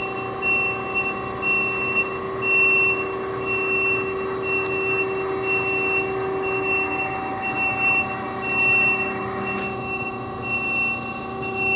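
JMT WL 460DSAR double-miter band saw swinging its head automatically toward a minus-60-degree miter: a steady motor and hydraulic hum with a high electronic warning beep repeating a little over once a second. The hum's tone shifts briefly about ten seconds in.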